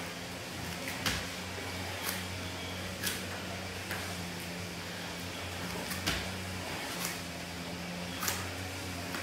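Steady low hum, with light taps about once a second from bare knees and feet touching down on a thin exercise mat during kneeling-to-lunge leg exercises.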